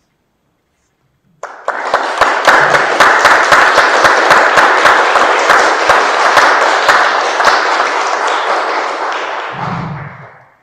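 Audience applauding, starting suddenly about a second and a half in and dying away near the end.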